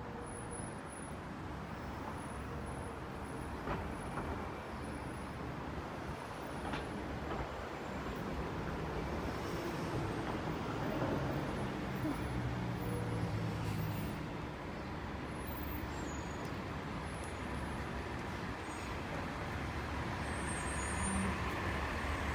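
City street traffic: car and heavy-vehicle engines running and passing with a steady low rumble. One engine's hum comes up louder for several seconds in the middle.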